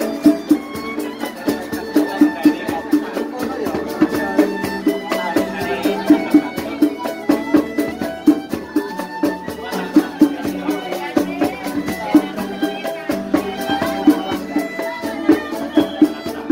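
Street musicians playing a traditional-style tune: a drum keeps a steady beat under a sustained melody line.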